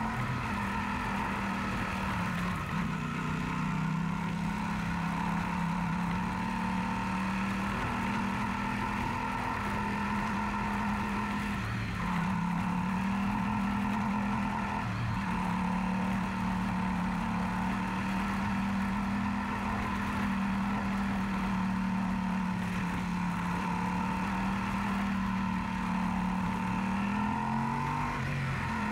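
Yamaha Super Ténéré's parallel-twin engine running at a steady cruise while riding. Its note dips briefly a few times and comes back up, over a steady rush of noise.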